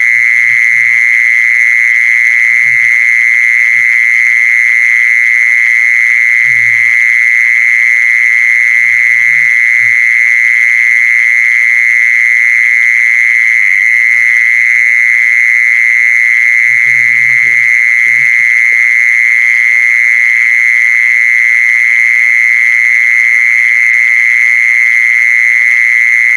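Continuous high-pitched trilling call of the khmol, played as a lure to bring in the female; one steady, unbroken tone that never changes pitch. Faint low knocks sound now and then beneath it.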